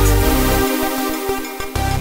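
Electronic dance music with a heavy bass and beat. About half a second in, the bass and drums drop out, leaving higher synth notes.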